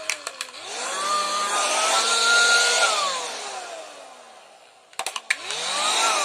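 Small electric pump motor switched on and off twice: a few clicks, then a whine rising as it spins up, running for about two seconds, then falling as it coasts down. More clicks, then a second, shorter spin-up and run-down near the end.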